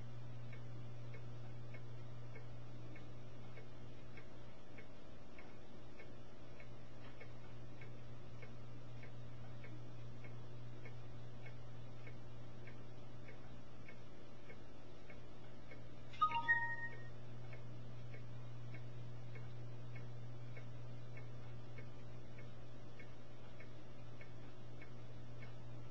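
Steady low hum with faint, regular ticking. About sixteen seconds in, a brief run of short pitched beep-like tones.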